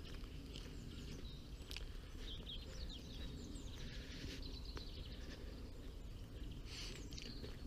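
Small birds chirping and calling now and then over a steady low background rumble.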